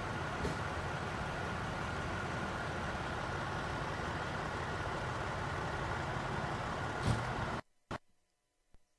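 Steady outdoor noise of idling vehicles and road traffic, with a faint steady high tone and a brief louder sound a little after seven seconds. It cuts off suddenly at about seven and a half seconds, leaving near silence broken by a single click.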